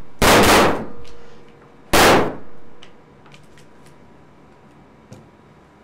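Two pistol shots about two seconds apart, blanks fired from a prop pistol during a take, each a sharp bang that rings on briefly in the room. A few faint clicks from the gun being handled follow.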